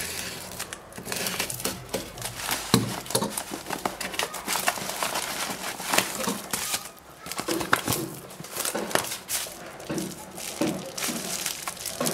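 Irregular crinkling and rustling of a plastic padded mailer and bubble wrap as the mailer is cut open and a bubble-wrapped parcel is pulled out. Sharp crackles run all through, with a short lull about seven seconds in.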